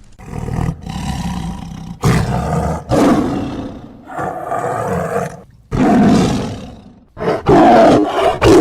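A large wild animal roaring, about eight roars one after another with short breaks between them.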